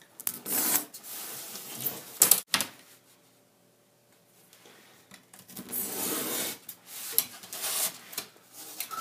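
Utility knife blade drawn along a steel ruler, slicing all the way through a sheet of foam: scratchy rasping strokes in two spells with a pause between, and a sharp knock about two seconds in.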